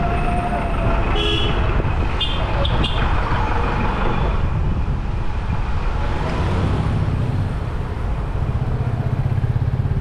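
Congested city street traffic: vehicle engines running close by, with short horn toots about one and two seconds in.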